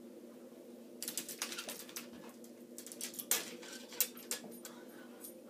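Irregular light clicks and clinks of fishing tackle being rummaged through by hand, spinnerbaits with metal blades knocking together, starting about a second in and dying away near the end. A faint steady hum lies under it.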